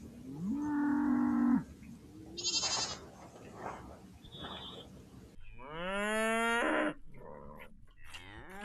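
Cattle mooing: two long calls, the first starting about half a second in and lasting about a second, the second rising in pitch and then held for about a second and a half. A few short high-pitched sounds come between the calls.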